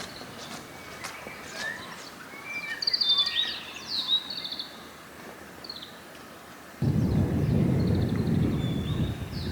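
Small birds chirping and calling outdoors. About seven seconds in, a low rumble of thunder comes in abruptly and carries on under the birds.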